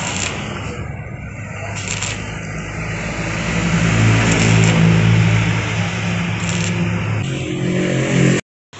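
Stick (arc) welding with a small inverter welder: the arc crackles and sizzles steadily, with a low hum underneath, as a spool-insulator bracket is welded onto a steel pipe mast. The sound cuts off abruptly near the end.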